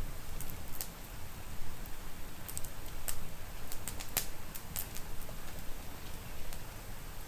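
Wood fire crackling in a fireplace: scattered sharp pops and snaps, several close together in the middle, over a steady low rumble and soft rain.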